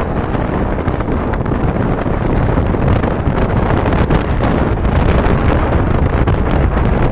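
Wind from riding a motorcycle, blasting the microphone in a loud, steady low rumble of rushing air.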